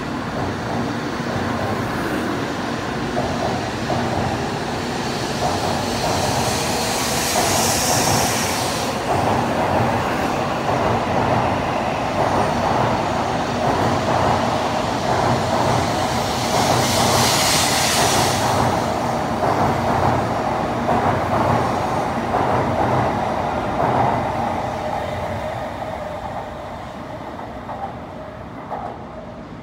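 N700A Shinkansen train pulling out of the station and running past at close range, a steady running noise of motors and wheels. Two bursts of hiss come about 8 and 17 seconds in, the second the loudest, and the sound grows quieter in the last few seconds.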